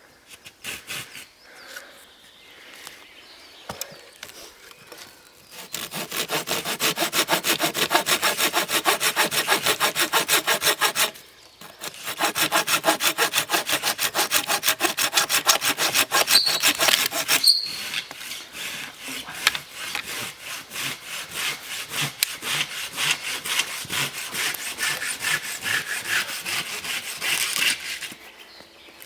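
Hand saw cutting through wood with quick back-and-forth strokes, starting about six seconds in. After a short break near the middle the sawing goes on, less evenly toward the end, and stops just before the end.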